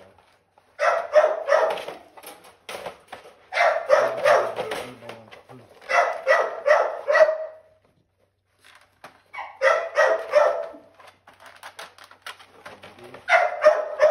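Dog barking in quick runs of several barks at a time, five runs about two to three seconds apart, the first starting about a second in.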